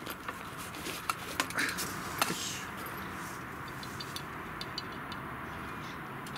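Brass Svea stove being unpacked from its fabric pouch and nested metal cup and set down. There is rustling and a few light metal clinks in the first couple of seconds, then a few faint ticks.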